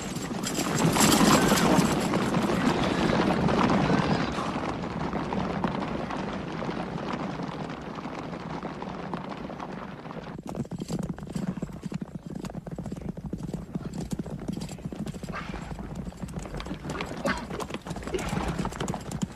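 Horses galloping in a group: a dense clatter of hoofbeats, loudest in the first few seconds and thinning out after about ten seconds. A horse neighs briefly a couple of times in the second half.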